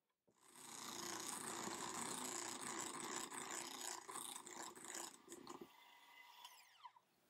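Electric hand mixer running with its beaters in a bowl of batter. It is switched off about five and a half seconds in, its whine falling away as the motor spins down.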